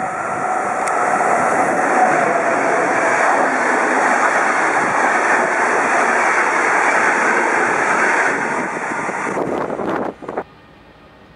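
An EuroCity passenger train hauled by a Siemens Taurus (EU44 Husarz) electric locomotive passing at speed: a loud, steady rush of wheels on rails and passing coaches with a faint steady whine through it. The sound cuts off suddenly near the end.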